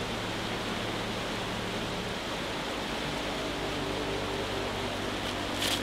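Steady hiss with faint low steady tones underneath, and a brief burst of sharper high hiss near the end.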